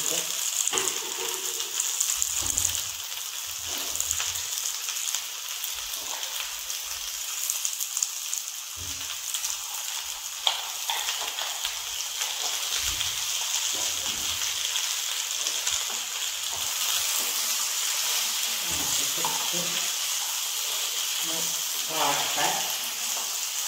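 Cut okra frying in oil in a nonstick pan: a steady sizzle with scattered small pops. Near the end a wooden spatula stirs through the pieces.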